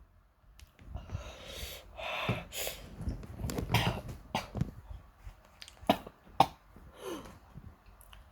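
A person breathing hard and making short coughing, sniffing sounds through an itchy nose between sneezes, with two short sharp sounds about six seconds in.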